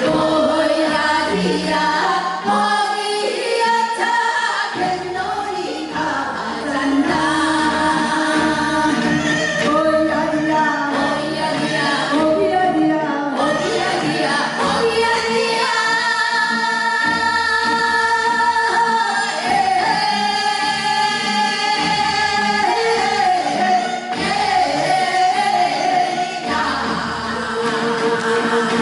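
Korean Gyeonggi minyo folk singing by female voices, a continuous melodic song line with wavering, ornamented pitch.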